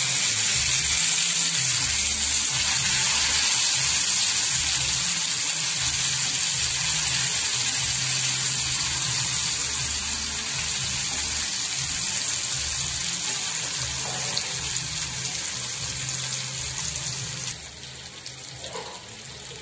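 Masala-coated fish pieces shallow-frying in oil on a dosa tawa over a low flame: a steady, dense sizzle. Near the end it suddenly drops much quieter.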